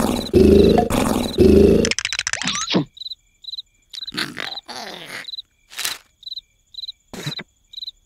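An animated larva's gruff, strained grunting vocalizations for the first two seconds. After that, crickets chirp steadily about twice a second, broken by a yawn and a few short rustles.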